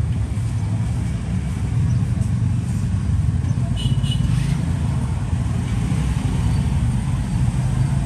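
Steady low rumble of background noise, like nearby road traffic, with a brief faint high tone about four seconds in.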